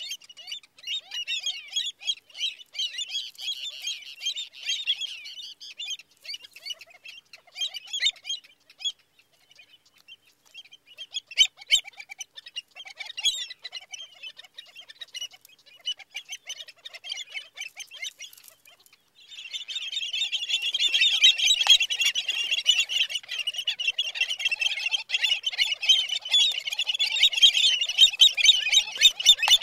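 A flock of American avocets calling: scattered sharp, high calls at first, then about two-thirds of the way through a sudden dense, nonstop chorus of calls. The chorus comes as the avocets mob a great blue heron at a nest, the alarm calling of a disturbed colony.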